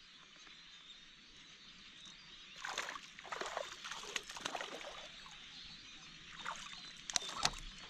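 A hooked small smallmouth bass splashing at the surface while it is played in, in irregular splashes that start about two and a half seconds in, with a few sharp clicks near the end.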